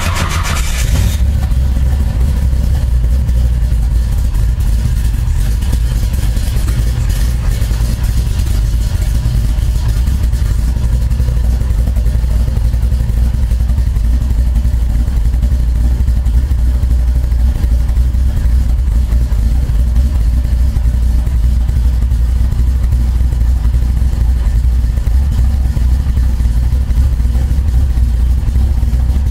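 Big-block Chevy 496 V8 with a large hydraulic roller cam and Fitech throttle-body fuel injection starting from stone cold, around 33 °F. The start-up noise gives way about a second in to a steady fast idle near 1,000 rpm.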